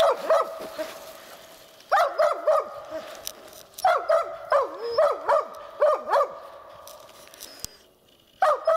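Laika hunting dogs barking in bursts of a few barks at a time, with short pauses between the bursts.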